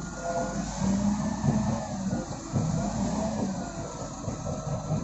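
A vehicle engine running steadily, with a faint whine that wavers slightly in pitch.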